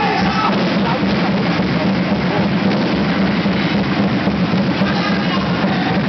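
Music with drums, loud and steady.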